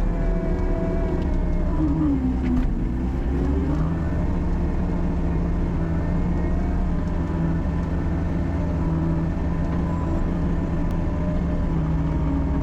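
Engine running steadily, its pitch dipping and coming back up between about two and four seconds in.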